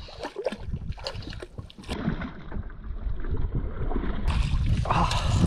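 A hooked fish splashing repeatedly at the water's surface beside a small boat as it is reeled in, in a run of short sharp splashes. Wind buffets the microphone throughout, growing louder toward the end.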